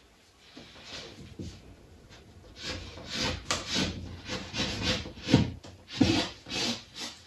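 Pencil drawing on a large paper sheet taped to a board on an easel. Faint scratching at first, then quicker, louder back-and-forth strokes from about two and a half seconds in, roughly three a second, as the legs of a figure are sketched in.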